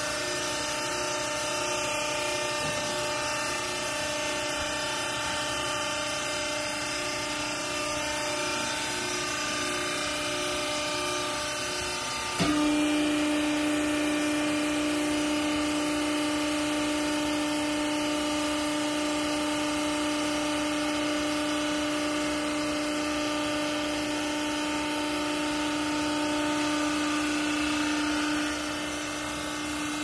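Hydraulic power unit of a small vertical baler, its electric motor and pump running with a steady whine. About twelve seconds in it gets suddenly louder and settles on a lower steady hum, as the pump takes load to drive the ram down.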